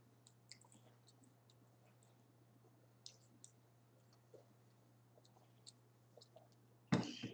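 Quiet eating sounds: scattered faint clicks of chewing and a fork on a plate. Near the end, a sudden loud breath-like sound lasting about half a second, from the woman drinking as she comes off her water bottle.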